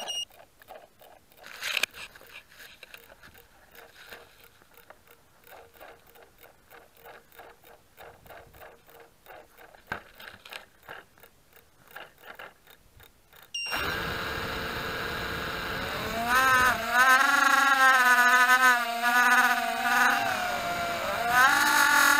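Faint clicking for the first half, then a sudden jump to a steady hiss. From about two-thirds of the way in comes the whine of the Walkera Rodeo 110 quadcopter's motors, its pitch rising and falling as the throttle changes.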